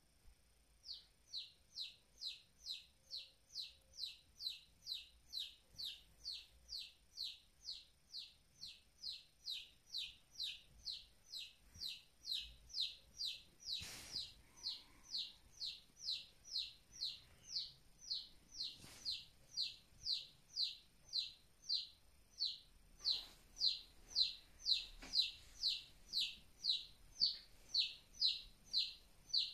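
Baby chick peeping over and over, about two short falling peeps a second, starting about a second in.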